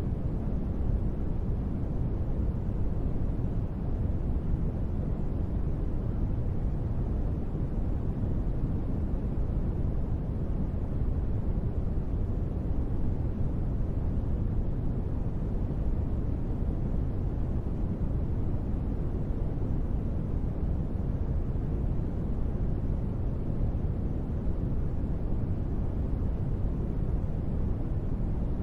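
Steady noise track for sleep, billed as white noise but weighted heavily to the low end, so it is heard as a deep, even rumble that never changes.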